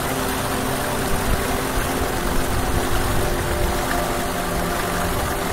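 Small village stream rushing after rain: a steady, even wash of running water close to the microphone.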